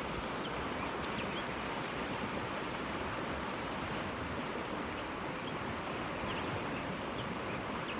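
Steady rush of a flowing river, an even noise without distinct events.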